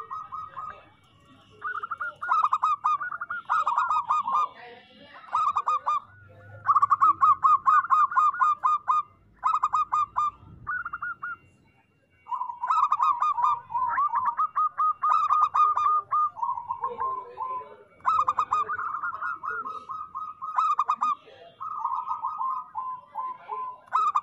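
Zebra dove (perkutut) song: phrase after phrase of rapid, staccato cooing notes, with short pauses between them.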